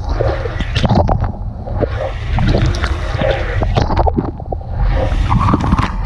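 Dishwasher wash cycle heard from inside the tub: jets of water spraying and splattering onto the dishes and racks, swelling and easing about every two seconds, over a steady low rumble.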